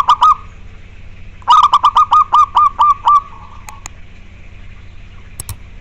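Zebra dove (perkutut) cooing: a quick burst of short coo notes at the start, then about a second and a half in a longer run of about nine notes that slows down and trails off.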